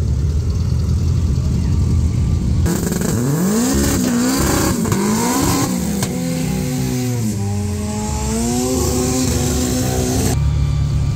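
Drag racing cars launching and accelerating down the strip, the engine pitch climbing and dropping back at each gear change, then sliding down as they run out the far end. A steady low rumble comes before the launch and returns near the end.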